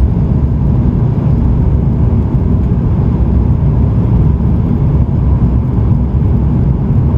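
Cabin noise of a jet airliner climbing just after lift-off, heard from a window seat over the wing: the engines at takeoff power and the rush of air give a loud, steady low rumble, with a faint steady whine above it.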